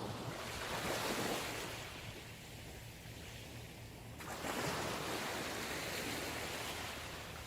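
Sea waves washing onto a shore: two waves, the second breaking about four seconds in, each swelling and then fading.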